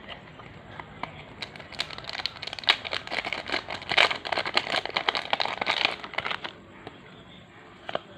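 Trading-card booster pack wrapper crinkling and tearing as it is opened: a dense run of crackles starting about two seconds in, loudest in the middle, dying away after about six seconds.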